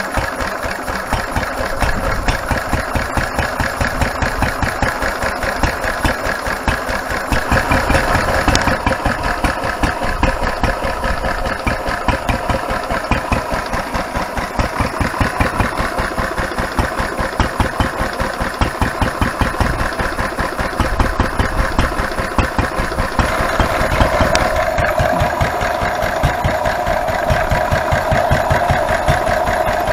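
1943 Lister D-type single-cylinder stationary engine running steadily with rapid, even exhaust beats, belt-driving a grinding mill that is milling wheat into flour.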